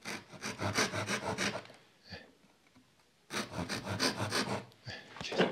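A hand saw cutting a thin wooden lattice bar with short, quick strokes: one run of strokes, a pause about two seconds in, then a second run.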